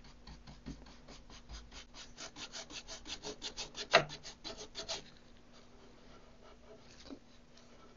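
Paintbrush bristles scrubbing paint onto a wooden cabinet edge in quick back-and-forth strokes, about five a second, stopping about five seconds in.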